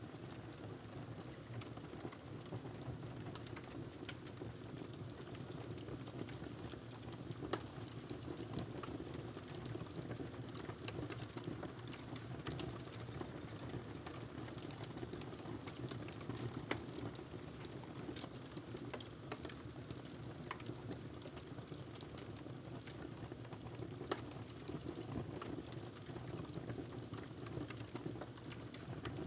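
Wood fire crackling in a fireplace: a steady low rush of flames with scattered small crackles and a few sharper pops.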